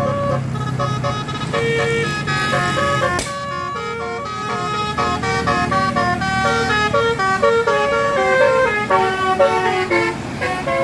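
Telolet bus horn, a multi-tone air horn, playing a tune of short notes that step up and down in pitch, over the low hum of the bus engine. A sharp click about three seconds in.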